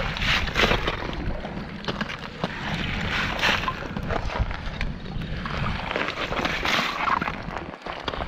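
Broken ice and slush being scooped out of a freshly cut ice hole with a long-handled metal mesh scoop: crunching ice and sloshing water in about three strokes, over wind rumbling on the microphone.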